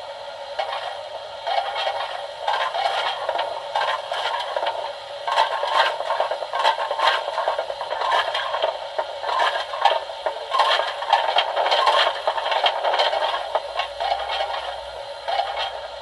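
Sound-fitted O gauge 64xx pannier tank model locomotive playing its DCC steam sounds: a steady hiss with irregular rattling and clattering over it.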